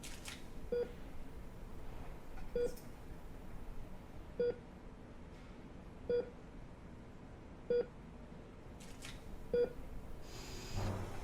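Heart-rate monitor beeping steadily: six short, same-pitched beeps, one about every 1.8 seconds, following a slow, steady heartbeat.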